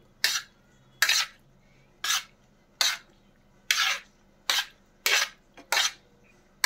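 Steel spoon scraping and clinking against a plate as boiled macaroni is mixed, about nine short strokes roughly a second apart.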